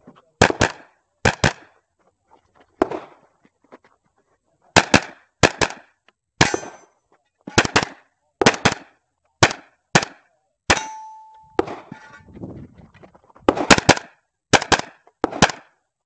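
Carbine shots fired in quick pairs, about ten pairs with short pauses between strings. About eleven seconds in, a steel target rings briefly after a hit.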